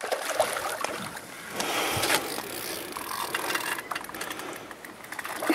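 Water churning and splashing at the surface as a hooked carp fights close to the bank, louder about two seconds in.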